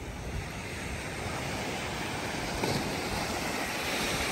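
Small waves breaking and washing up a sandy beach, a steady surf hiss that swells a little louder about halfway through, with wind rumbling on the microphone.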